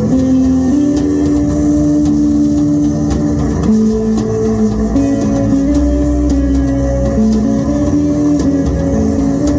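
A rock band jamming loud: an electric guitar holds sustained notes that change about every second, over drums and cymbals with a heavy low end.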